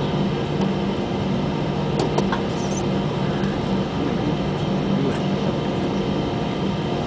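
Steady cabin hum of an Airbus A320 on the ground before take-off: engines and air conditioning running, with several steady low tones. A few faint clicks come about two seconds in.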